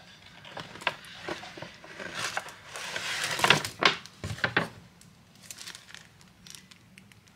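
Paper gift bag and wrapping rustling and crinkling as a present is taken out, with a few sharp crackles near the middle.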